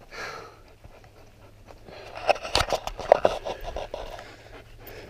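Panting breaths, with handling noises in the middle: rustling and a few sharp clicks and knocks from about two to four seconds in.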